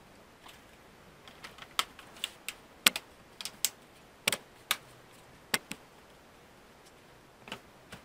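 Plastic lower case of a Dell Chromebook 11 3120 being snapped back onto the laptop: a quick run of sharp plastic clicks as its clips catch, then one softer click near the end.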